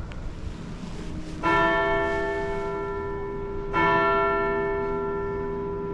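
A large church bell struck twice, a little over two seconds apart. Each stroke rings on with a long hum that fades slowly.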